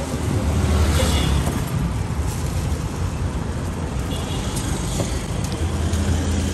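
Street traffic: the low drone of passing vehicle engines, swelling twice, over a steady street hubbub. A few faint knife clicks come from a pineapple being sliced.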